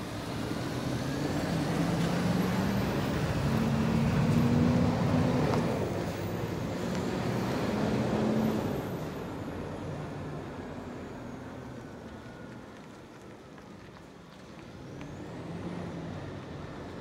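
Diesel engine of a Scania P230 street sweeper truck pulling away, its note rising as it speeds up, loudest about four to eight seconds in. The sound then fades as the truck moves off, swelling again briefly near the end.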